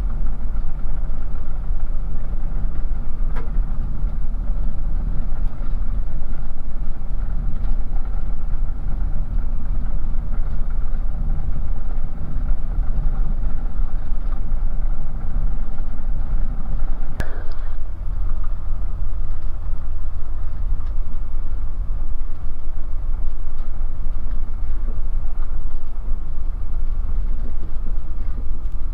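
Bristell light aircraft's carburetted piston engine and propeller running at low power while taxiing, a steady drone heard from inside the cockpit. A brief sharp click-like sweep cuts through a little past halfway.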